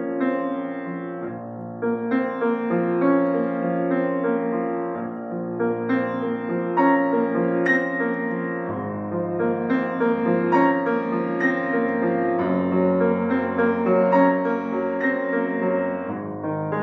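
Grand piano played solo: a continuous stream of overlapping notes over held bass notes, the bass moving lower about nine seconds in.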